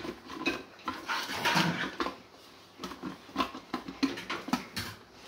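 Clear plastic lid and motor unit of a Silvercrest SECM 12 B4 ice cream maker being handled and turned on its frozen bowl: a run of light, irregular plastic clicks, knocks and scrapes as the lid is seated on its pins.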